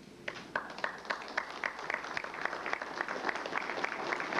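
Audience applauding: a few separate claps that build within about a second into steady clapping from many hands.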